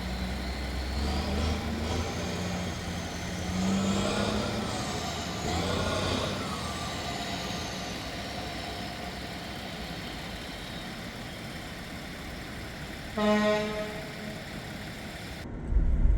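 Road traffic: a vehicle passes between about four and seven seconds in, and a horn gives a short toot about thirteen seconds in. Near the end the sound changes abruptly to a loud low rumble.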